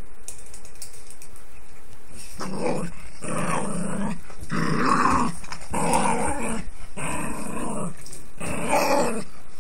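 Papillon dog play-growling at a hand in a string of about six rough growls, starting about two seconds in.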